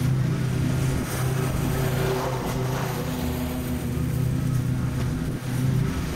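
Stand-on zero-turn mower engine running steadily at a constant pitch as the mower cuts through long, thick grass.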